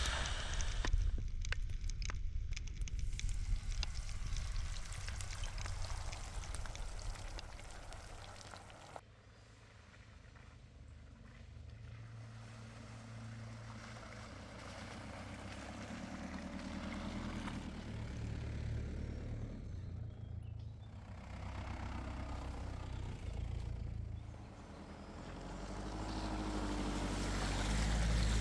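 A Mitsubishi four-by-four SUV driving slowly along a muddy forest track: a low engine rumble with tyres sloshing through puddles, growing louder near the end as it comes closer. The first few seconds are noisier, with many sharp crackling clicks, before the sound drops suddenly.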